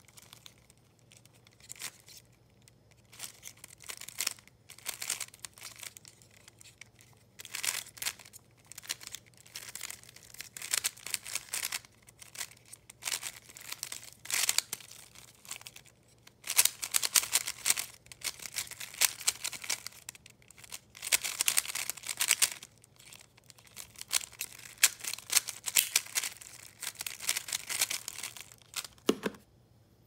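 Plastic 3x3 puzzle cube being turned fast by hand: bursts of rapid clicking and rattling layer turns with short pauses between, louder and busier in the second half. A single short knock comes near the end.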